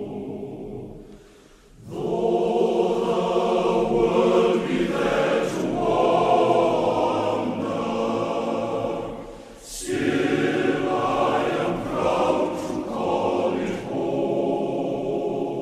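Background music with sustained, layered sung vocals holding long chords. It dips briefly twice, about a second and a half in and again near ten seconds.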